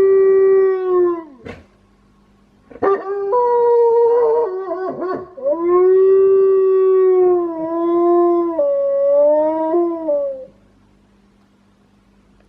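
Wolfdog howling: a long howl that ends with a falling glide about a second in, then a second howl that starts in broken, wavering pieces, settles into a steady tone and steps down in pitch before stopping with a short downward slide. The howl is a strange, quirky one.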